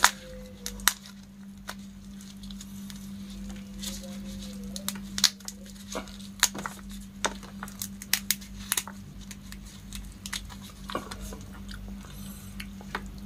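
Shell of a cooked giant freshwater prawn being cracked and peeled apart by hands in plastic gloves: irregular sharp cracks and snaps, over a steady low hum.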